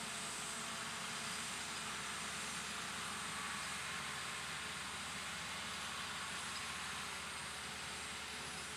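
Tractor diesel engines running steadily as a Claas tractor pulls a plough through wet ground and a second tractor pulls a seed drill.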